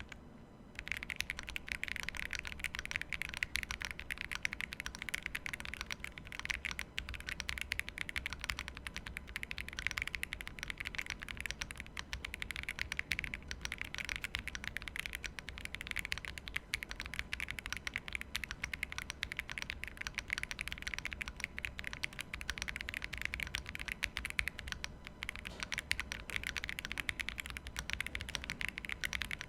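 Continuous typing on a Sugar65 aluminium 65% mechanical keyboard with Akko Cream Blue V3 switches: a dense, rapid stream of key clacks starting about a second in.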